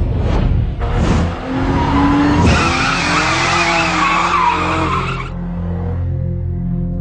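BMW coupé drifting: engine revs rise, then tyres squeal in a wavering screech from about two and a half seconds in until just past five seconds.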